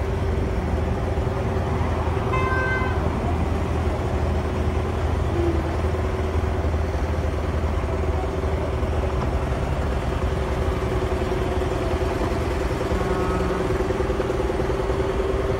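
Steady street noise with a constant low hum, and a short vehicle horn toot about two and a half seconds in. A fainter, briefer horn-like tone sounds later.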